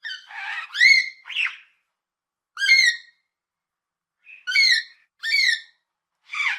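A parrot calling in short squawks, each under half a second. About four come in quick succession at the start, then single calls follow at gaps of about a second.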